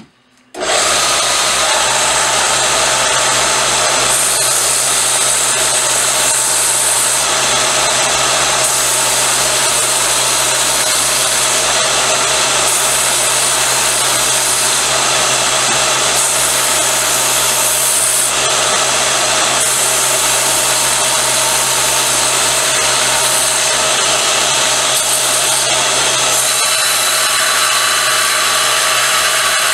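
Small benchtop belt sander starts about half a second in and runs steadily, its abrasive belt grinding the burrs and sharp edge off a cut-off steel part.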